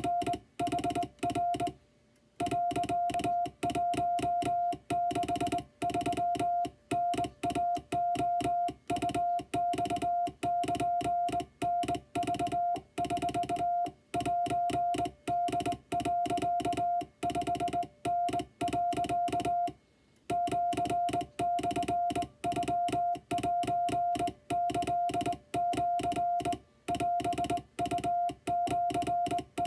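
Morse code sent by hand on a vertical straight key: a steady mid-pitched sidetone keyed on and off in long and short elements, spelling out a Japanese wabun-code telegram, with a sharp click at each key-down. The sending pauses briefly about two seconds in and again about twenty seconds in.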